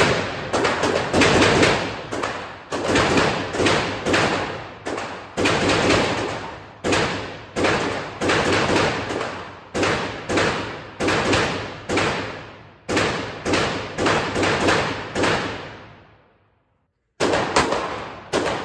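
Handgun shots in an indoor shooting range, among them a Glock 43 9mm pistol. There are dozens of loud shots, roughly two a second, each ringing briefly off the walls. Near the end they pause for about a second, then three more follow.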